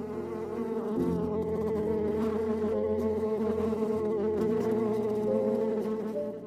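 A flying insect buzzing: a steady, wavering drone.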